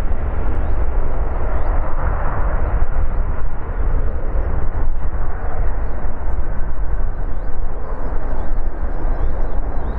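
Boeing 767-300ER's twin jet engines at takeoff power during the takeoff roll, heard from far off as a loud, steady low rumble. Small birds chirp faintly over it in the last few seconds.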